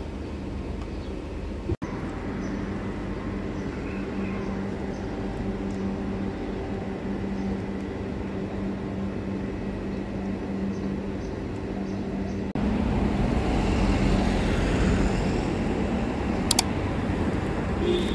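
Street background noise with traffic and a steady low hum. It changes abruptly about two seconds in, and again about twelve seconds in, where it gets louder, with a couple of sharp clicks near the end.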